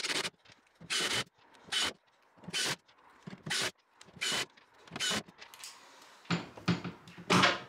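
Screwdriver driving screws into a stainless steel piano hinge: a short scraping burst about every 0.8 seconds, stroke after stroke. Near the end, louder, denser knocking and handling noise.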